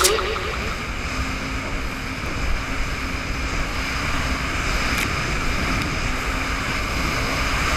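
Jet ski running steadily across choppy water: an even engine drone with a faint constant hum and rushing water.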